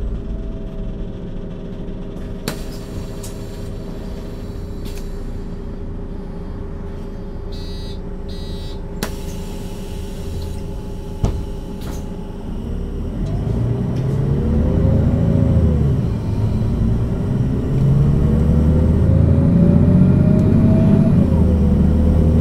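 Mercedes-Benz O 530 G Citaro articulated bus idling steadily at a stop, with a few clicks and a short beeping about eight seconds in. About thirteen seconds in it pulls away: the engine grows louder and the drivetrain whine rises, drops back as the ZF gearbox changes up, and rises again to a second upshift near the end.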